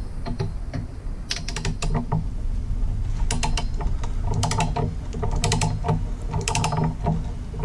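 Ratchet of a click-type torque wrench clicking in short bursts, about one burst a second, as it runs bolts down on a Jeep 4.0 inline-six block. This is the first stage at 35, on bolts that go to 80 in the end.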